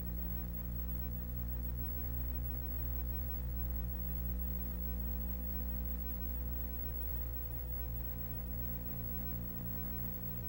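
Steady low electrical hum, a set of even unchanging tones with nothing else over it.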